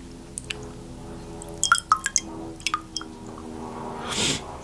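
Close-miked wet mouth sounds: scattered lip smacks and tongue clicks, with a short breath sound about four seconds in. Faint steady background music runs underneath.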